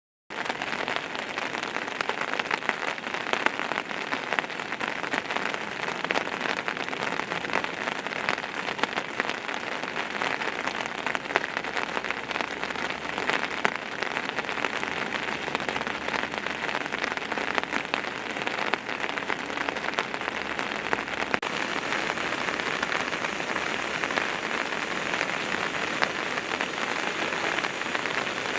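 Steady, even rushing of water, with no let-up, starting abruptly just after the start.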